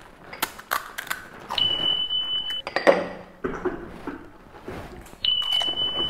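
A steady, high electronic beep about a second long sounds twice, a tally beep for each puri eaten. Between the beeps come short crunches and clicks of crisp puris being cracked open and eaten.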